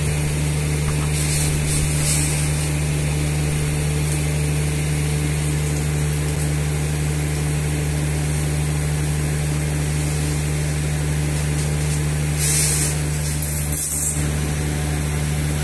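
Steady low hum of a running machine motor or engine, even and unchanging throughout, with two brief high hissing scrapes, one about a second in and one near the end.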